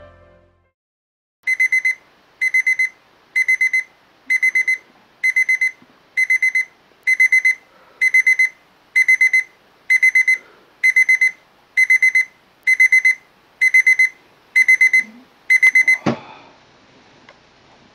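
Electronic alarm clock beeping in quick clusters of about four beeps, repeating roughly once a second. It goes off about a second and a half in and stops with a sharp thump near the end, as the alarm is switched off.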